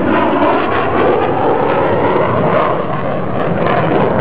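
Twin-engine F-22 Raptor fighter jet making a low pass just below the speed of sound: loud, steady jet engine noise with a wavering, sweeping quality as it goes by.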